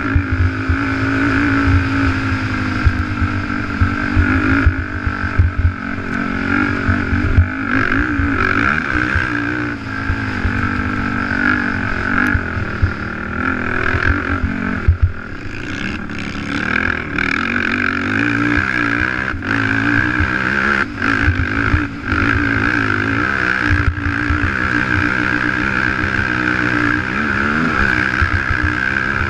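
Racing quad's engine at race throttle, its pitch rising and falling as the rider works the throttle and gears over the dirt track. Short knocks from the rough ground run through it.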